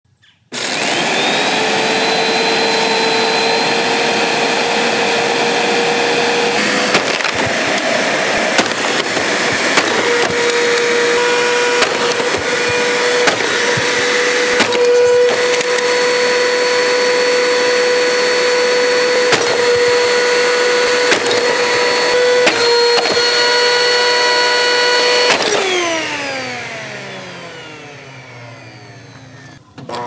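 Hoover Nano Lite upright vacuum cleaner's 12-amp motor switching on and whining up to a steady high pitch, running loudly with repeated sharp knocks and cracks. About 25 seconds in, the motor winds down, its whine falling in pitch and fading.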